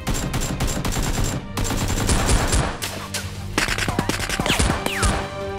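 Dubbed movie-style automatic gunfire sound effect, rapid shots in long bursts, laid over a toy foam-dart blaster being fired. A couple of falling whines come near the end.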